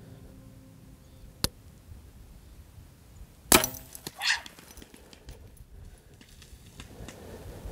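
Compound bow being shot: a sharp click about a second and a half in, then the loud snap of the released string about three and a half seconds in, followed just under a second later by a second, shorter burst of noise.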